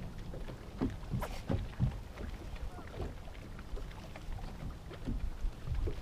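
Water lapping against a bass boat's hull, with scattered light knocks and taps, most of them in the first two seconds.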